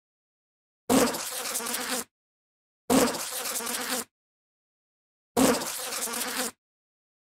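Bee buzzing in three separate bursts of about a second each, with dead silence between them. Each burst starts loudest and then holds a steady buzz.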